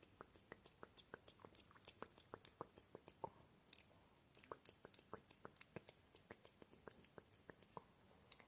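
Close-miked ASMR mouth sounds: a quick run of soft tongue clicks and moist smacks, about three to four a second, with a short lull about four seconds in.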